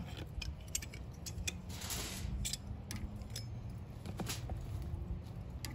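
Scattered light clinks and crinkles of a glass bottle and aluminium foil being handled while sauce is poured over meat on the foil, over a steady low hum.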